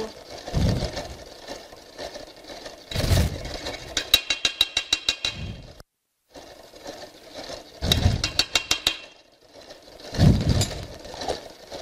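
Stand mixer running, beating red velvet cake batter with the red food colouring just added, with surges of motor sound and stretches of fast, even rattling clicks. The sound drops out for a moment about six seconds in.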